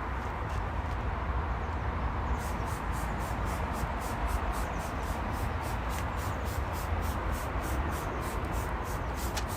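Pressure washer running and spraying: a steady hiss over a low rumble, with a fast regular ticking joining in about two seconds in.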